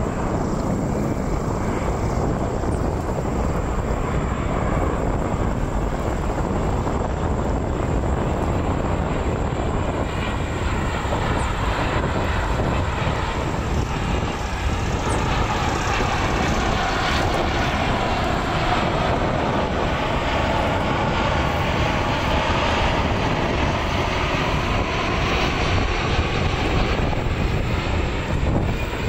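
Jet airliner engines at high thrust, a loud continuous rumble. In the second half, a whine bends in pitch as the plane passes.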